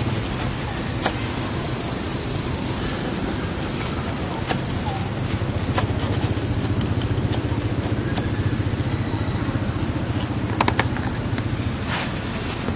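A motor running steadily with a low hum, with a few sharp clicks, a cluster of them near the end.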